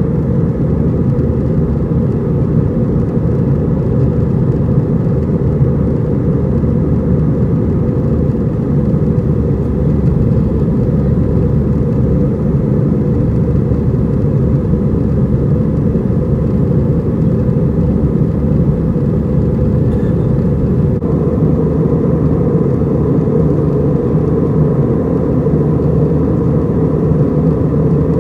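Cabin noise over the wing of an Airbus A320 climbing out: its CFM56-5A3 turbofan engines and the rushing airflow make a loud, steady low rumble. A faint higher steady hum joins about two-thirds of the way through.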